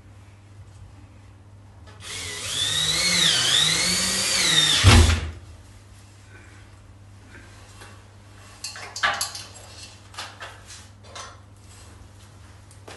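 Cordless drill run for about three seconds against the ceiling, its motor whine dipping and rising in pitch under load and ending in a thump. A few light knocks and clicks follow.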